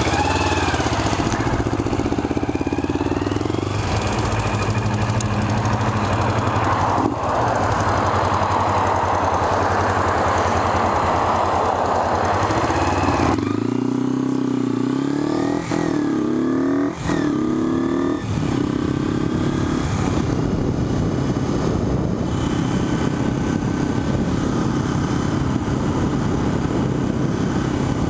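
Kawasaki Ninja 250's parallel-twin engine heard from the rider's helmet: running steadily at low speed, then revving up through the gears with three quick shifts about halfway through. It then settles into steady cruising, with wind noise.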